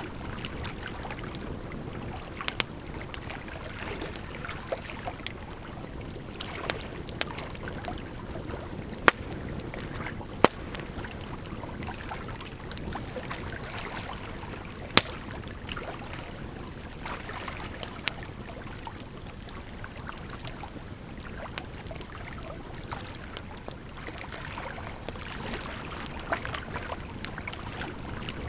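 Burning firewood crackling, with scattered sharp pops and a few louder snaps, over a steady sound of running water.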